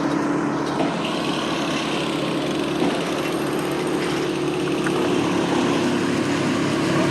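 An engine running steadily at an even speed, a constant hum with a level pitch.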